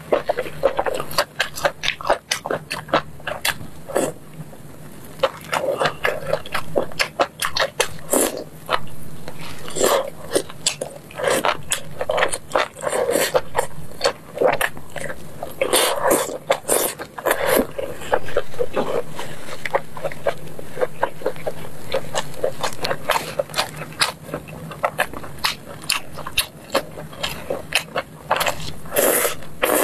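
Close-miked eating sounds: wet chewing, lip-smacking and mouth clicks as soft, sauce-glazed skewered meat and mushrooms are bitten off bamboo skewers and chewed, with a faint steady low hum underneath.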